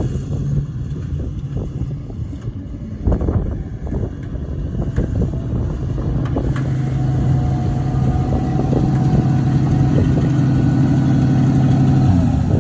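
1968 International Harvester 3/4-ton pickup driving up and stopping, its engine running steadily and growing louder as the truck approaches. The engine cuts off abruptly near the end.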